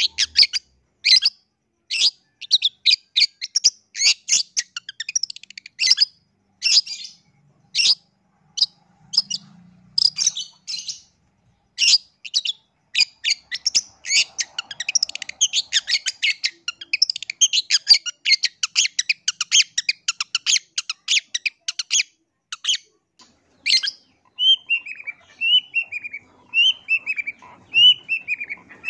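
Long-tailed shrike (pentet) in full, vigorous song: rapid runs of short, sharp chattering notes, thickest about halfway through. Near the end comes a series of about half a dozen falling slurred notes, roughly one a second.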